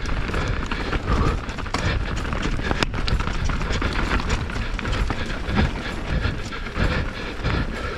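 YT Jeffsy 27.5 mountain bike descending a rough enduro trail at speed, heard from the rider's on-board GoPro. Tyres rumble over dirt, roots and rocks, and the frame, chain and suspension rattle in a dense, uneven run of knocks.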